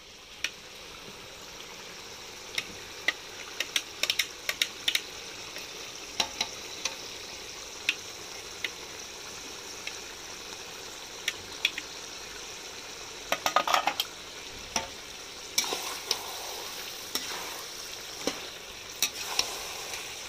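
Mutton frying for a curry in a metal kadhai with a steady sizzle, while a steel ladle stirs it, clinking and scraping against the pan many times, with a quick run of clinks about two-thirds of the way through.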